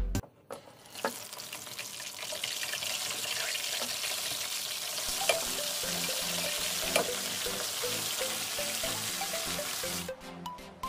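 Coated chicken pieces deep-frying in hot oil in a wok on their second fry: a steady, loud sizzle that starts about half a second in and stops shortly before the end. Two sharp clicks of metal tongs against the wok come midway.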